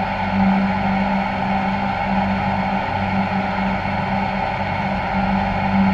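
Steady mechanical drone: even, loud noise with a constant low hum.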